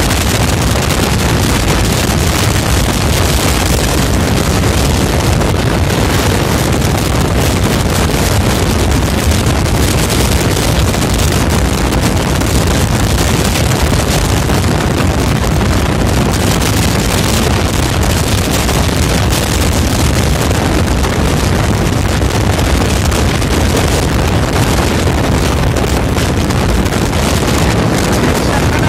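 Steady rush of wind on the microphone over the road and engine noise of a vehicle travelling at speed.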